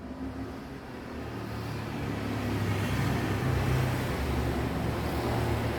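Low, steady engine rumble of a passing motor vehicle, growing louder over the first few seconds and then holding.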